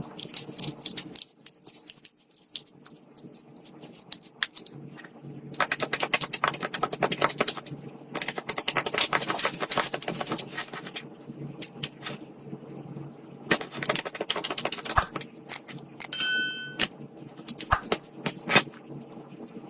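Slime being mixed and squished by hand, giving bursts of rapid crackling and popping clicks with single snaps in between. A brief high ringing tone sounds about 16 seconds in.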